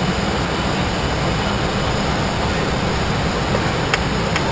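Steady rushing noise inside a private jet's cockpit in flight, with a couple of short clicks about four seconds in.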